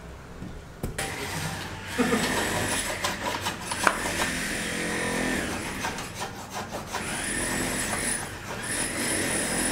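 Hand saw cutting through a white aerated lightweight concrete block in slow back-and-forth strokes, a scraping sound that starts about a second in.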